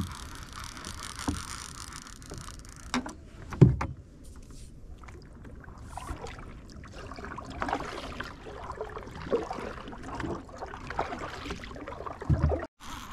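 A paddle working the water beside a small wooden boat, with irregular splashing strokes through the second half. Two hollow thumps a little over three seconds in are the loudest sounds.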